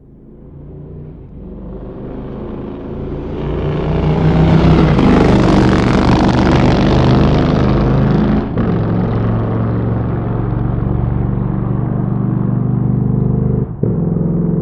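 Motorcycle engine growing louder over the first four seconds or so, then running at a steady pitch, with two brief breaks in the sound about eight and a half and fourteen seconds in.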